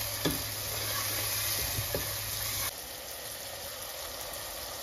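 Onion and tomato masala sizzling in oil in a nonstick pot, with a few light knocks of a spatula stirring it. The sizzle drops suddenly a little past halfway and carries on more quietly.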